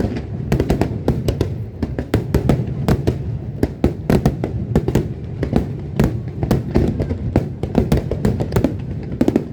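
Aerial fireworks bursting in rapid succession, a dense run of sharp bangs and crackles several times a second over a steady low rumble, with show music underneath.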